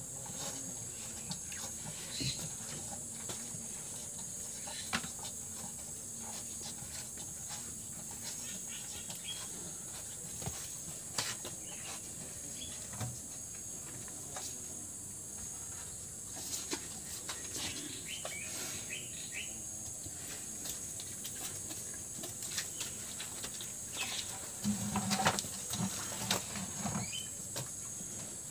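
Steady high-pitched insect chorus with occasional bird chirps, over scattered small clicks and knocks from calves nosing around a plastic bucket. About 25 seconds in, a short low-pitched sound rises above the rest.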